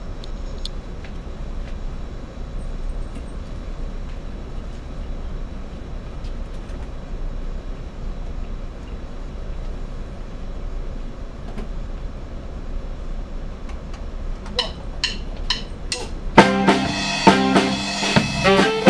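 Room noise with a steady low hum between songs, then about fourteen seconds in four sharp clicks at an even pace, like drumsticks counting in, and a live band with a Tama drum kit starts a song about two seconds later.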